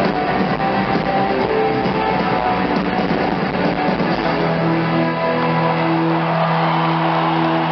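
Live rock band music with electric guitars and drums. About four seconds in, the drumming drops away and a chord is held.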